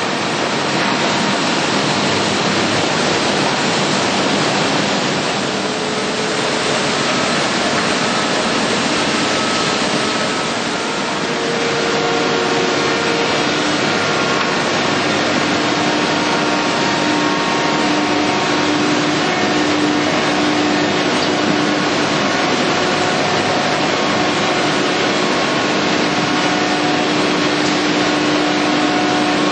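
Industrial edge sanding line running: a loud, steady rushing noise from the sanding machines and their dust extraction, with several faint steady motor tones over it.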